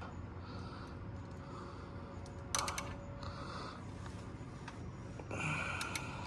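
Faint rag-wiping and handling noises while spilled engine oil is cleaned up under a car, with a few light clicks about two and a half seconds in and near the end.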